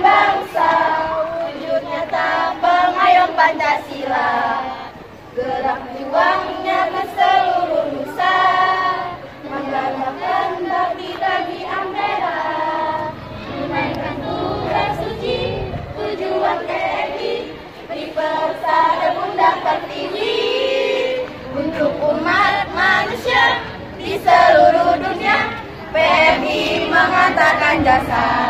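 A group of teenage girls singing together without instruments, one girl leading through a microphone.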